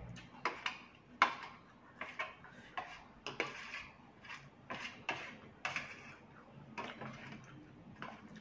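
Fork and spoon clinking and scraping against a plate as noodles in curry are stirred and scooped: a dozen or so irregular clinks, the loudest about a second in.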